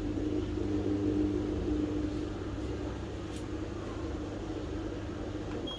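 Clothes dryer running with a grinding noise from its faulty fan: a steady mechanical drone with a low hum.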